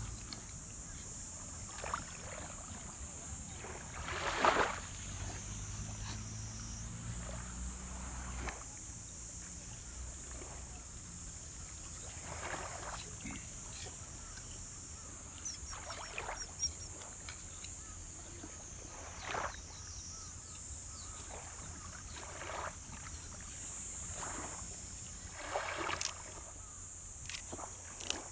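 Outdoor summer ambience: a steady high-pitched insect drone, with soft swishes of water lapping every few seconds, the loudest about four seconds in, and a low rumble during the first eight seconds or so.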